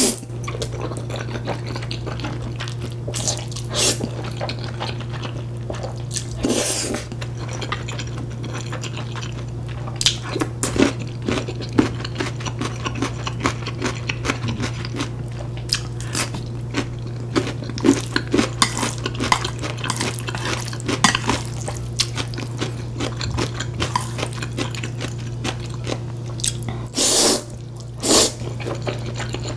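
Close-miked eating sounds: noodles slurped in longer wet bursts at the start, about seven seconds in and near the end, with chewing and chopstick-and-plate clicks in between. A steady low hum lies underneath.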